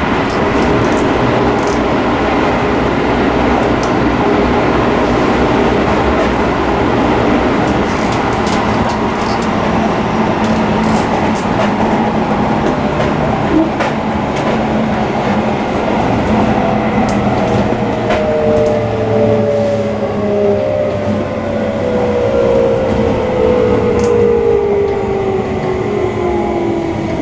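Seibu 20000-series commuter train running, heard from inside the car: a steady rumble of wheels on rail. A little past halfway, a whine in several pitches sets in and falls slowly as the train brakes for the next station.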